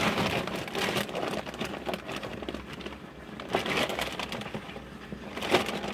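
Irregular rustling and scraping, with a few sharper knocks, the loudest near the end.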